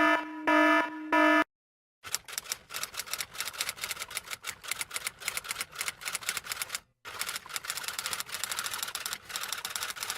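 Rapid typewriter keystrokes clattering for about eight seconds, with a short break midway, after a few short electronic beeps at the start.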